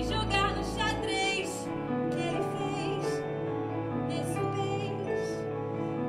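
A woman singing a musical-theatre solo in short phrases over sustained instrumental accompaniment.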